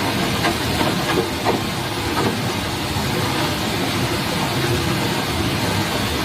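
Steady rushing of a forest stream, with a few faint knocks in the first couple of seconds.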